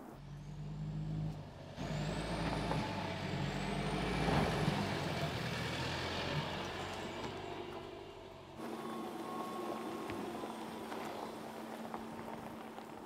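Mercedes GLC SUV driving over a loose dirt trail: tyres crunching over dirt and stones under a low steady drivetrain hum, loudest as it passes close about four seconds in. After about eight and a half seconds it drops to a quieter, more distant run of the car climbing.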